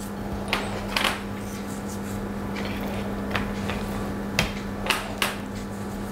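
Steady electrical hum of kitchen equipment, with a handful of short knocks and taps as raw salmon fillets are lifted, turned over and set back down on a porcelain plate while being salted.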